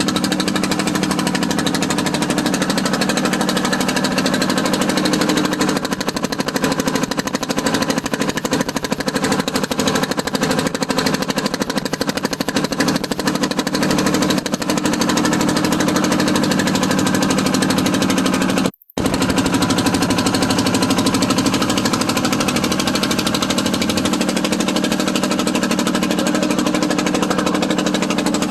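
Small motorboat's engine running steadily at speed, a loud, rapid pulsing drone close to the microphone. It cuts out for a moment about two-thirds of the way through, then carries on the same.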